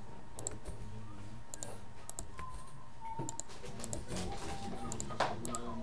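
Scattered light clicks and taps of typing on a computer keyboard, with one sharper tap about five seconds in, over faint background music.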